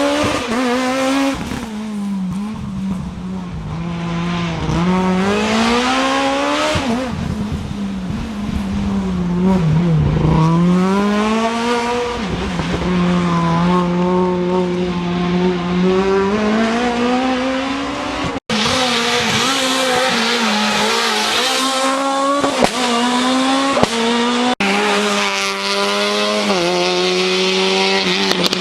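Rally car engines at full throttle on a stage, the engine note climbing and dropping again and again with gear changes and lifts off the throttle. The sound breaks off suddenly twice, about two-thirds of the way in and again near the end, as one passage gives way to another.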